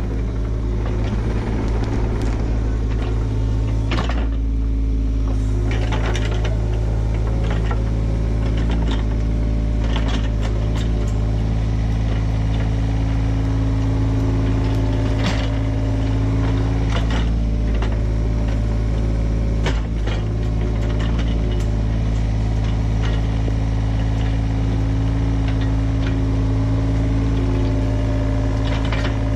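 John Deere 35G mini excavator's diesel engine running steadily under work, with scattered clanks and knocks from the digging.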